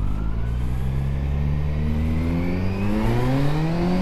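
Kawasaki Z900 inline-four on SC Project steel headers with the dB killer removed, accelerating, its exhaust note climbing steadily in pitch.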